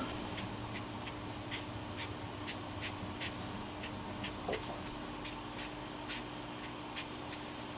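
Brush tip of a Tombow watercolor marker stroking across card paper: a string of short, irregular scratchy strokes, a couple a second.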